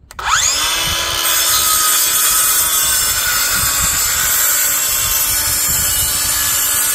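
Craftsman CMCS551B 20-volt brushless 7-1/4-inch cordless circular saw with a 24-tooth blade ripping through a 2x4. The motor whine rises as it spins up right at the start, then the blade cuts the wood with a loud, steady noise.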